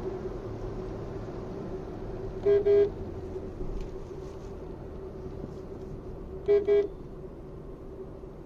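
Car horn giving two quick double toots about four seconds apart, heard from inside the cabin over the steady drone of the Maruti Suzuki Swift's engine and road noise.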